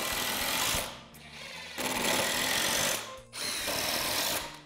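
Power drill boring holes into construction 2x4 lumber at an angle, running in three spurts of about a second each with short pauses between.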